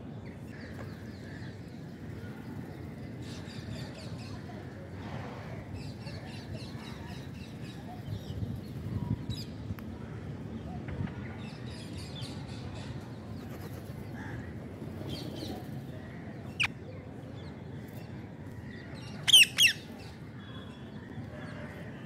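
A flock of rose-ringed parakeets feeding, with scattered soft chirps and clicks, one sharp call partway through, and two loud harsh squawks in quick succession near the end, over a steady low background noise.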